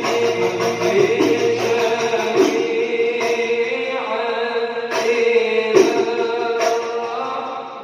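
Devotional shalawat chanting over a steady held note, with frame-drum strikes about once a second.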